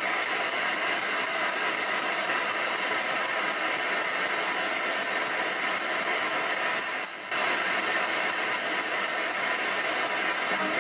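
Ghost box (spirit box) radio sweeping through stations: a steady hiss of static, with a brief drop in level about seven seconds in.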